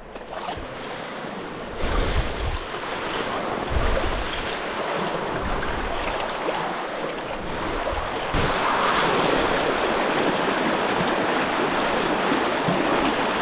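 Muddy, fast-flowing river water rushing and splashing close to the microphone as a person wades through it, with a few low knocks about two and four seconds in. The water noise gets louder about eight seconds in and stays that way.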